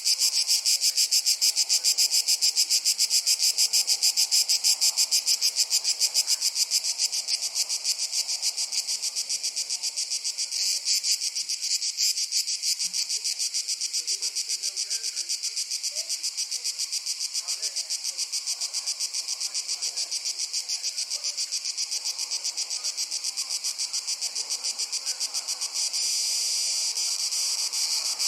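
Crickets chirping in a rapid, steady pulsing rhythm, with a faint soft rustle of wind beneath.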